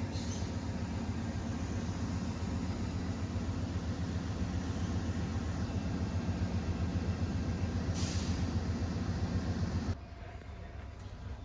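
Steady low rumble of the Amtrak Coast Starlight train running, heard from inside the car, with several low steady tones in it. A brief hiss comes about eight seconds in, and the rumble drops off suddenly near the end.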